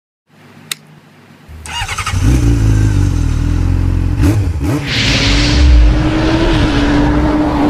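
Engine-revving sound effect of a motorcycle in an animated intro. It is faint at first, with a short click about a second in, then builds over the next second into a loud, steady engine note, with a burst of hiss around five seconds in.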